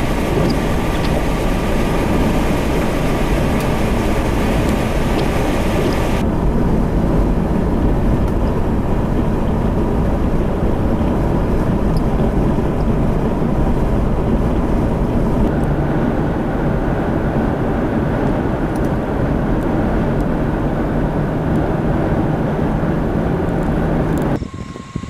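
Steady in-car driving noise: engine and tyre rumble with rain hitting the windshield and the wipers sweeping. After about six seconds the rain hiss stops abruptly, leaving the drier road rumble, and just before the end the sound drops off suddenly.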